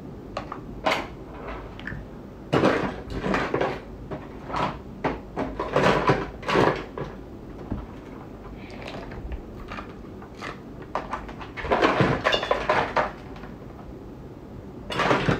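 Small objects being handled and rummaged through: irregular knocks and clatters in several bunches, the busiest about three to seven seconds in and again about twelve seconds in.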